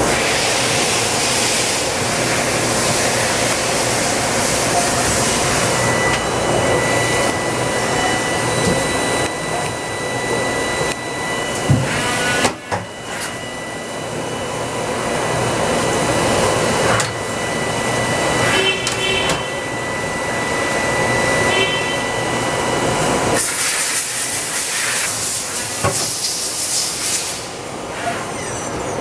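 Mori Seiki SH500 CNC horizontal machining center running: a steady mechanical hiss with a thin high whine through the middle, a few short clicks and pulsed tones, and a louder burst of hiss near the end.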